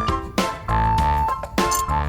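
Background music: pitched instrumental notes over a steady bass pulse.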